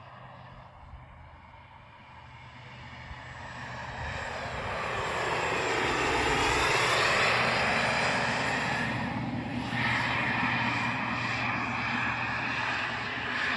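KingTech turbine of an RC Rafale model jet flying past: a whining jet rush that swells from about three seconds in, is loudest around six to seven seconds, then carries on strongly.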